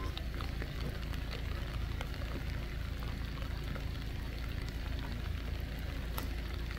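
Rain falling, with many scattered small ticks of drops, over a steady low rumble.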